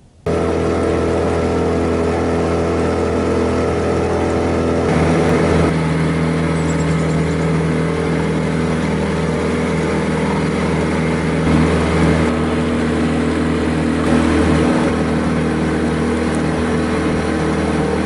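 Small boat's outboard motor running steadily under way, with a slight change in its note about five seconds in.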